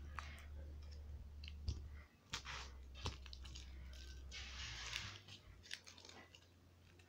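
Crinkled clear plastic wrapping being handled and picked at with the fingers, faint, with scattered small clicks and crackles and a longer crinkling rustle about four and a half seconds in.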